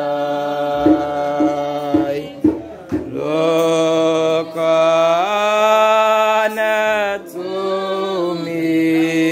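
Hymn sung very slowly in long, drawn-out held notes, the melody moving to a new note every two to three seconds.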